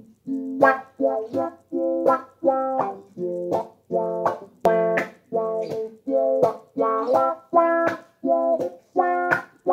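Electric guitar played through a freshly repaired MXR Envelope Filter pedal: a rhythmic riff of short plucked notes, about two a second, each with a wah-like sweep.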